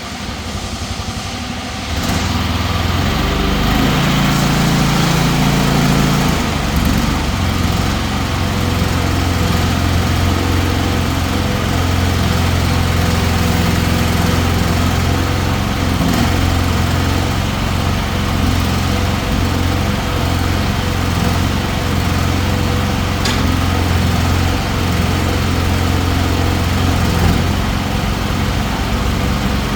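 Small engine of a mini excavator running, louder from about two seconds in, then holding a steady low hum.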